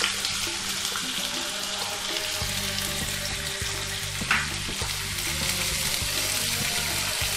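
Freshly chopped onions sizzling in hot oil in a kadai, a steady frying hiss, stirred with a spatula near the end.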